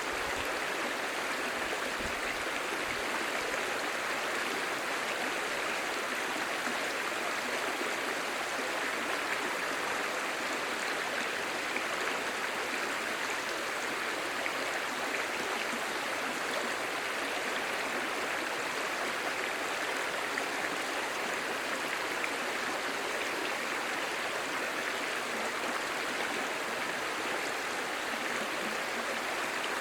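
Clear, shallow stream babbling steadily over stones.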